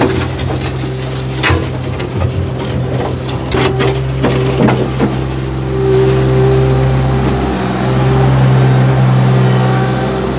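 MultiOne mini loader's engine running as the loader drives back and forth with its bucket, with a whine that comes and goes. A few sharp knocks in the first half.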